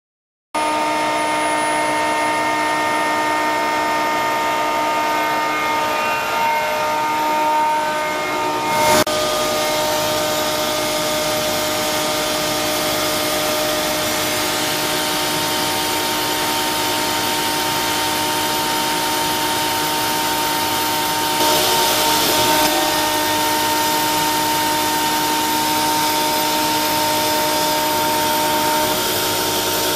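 CompAir L37 oil-flooded rotary screw air compressor running on load, a steady whine of several tones over a hiss as it builds line pressure. A sharp click comes about nine seconds in, and the hiss swells briefly a little past the twenty-second mark.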